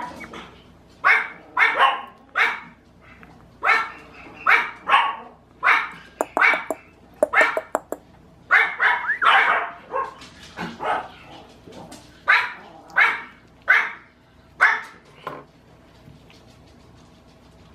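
A 53-day-old cream puppy barking: a string of about twenty short, high yaps in quick bunches, which stop about fifteen seconds in.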